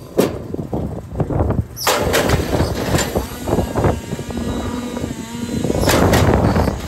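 Mini wood splitter splitting firewood: a running motor with sharp cracks of wood splitting and knocks of wood pieces on the machine, loudest just after the start, about two seconds in and about six seconds in.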